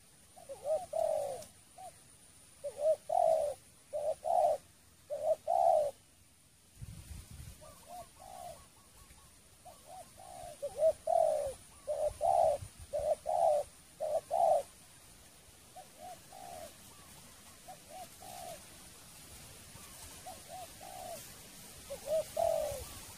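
Spotted dove (terkukur) cooing in repeated short phrases of low, rolling coos. It is loud in two runs, over the first six seconds and again from about ten to fifteen seconds in, with fainter coos toward the end. This is the kind of calling used with a decoy dove to draw wild doves in.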